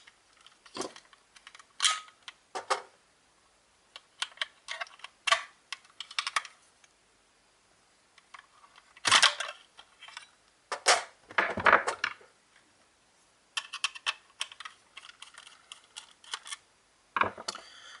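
Irregular plastic clicks, taps and rattles as AA batteries are pried out of a plastic walkie-talkie's battery compartment with a screwdriver and the case is handled. Two louder knocks come about nine and twelve seconds in.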